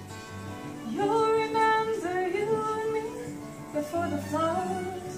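A young woman singing, accompanied by a man on acoustic guitar. Her voice comes in about a second in with long held notes, breaks off briefly past the middle, then carries on over the guitar.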